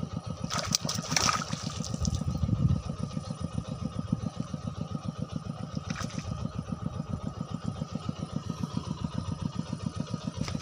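A small engine running steadily nearby with an even, rapid chug, with a few sharp clicks and a brief louder patch in the first few seconds.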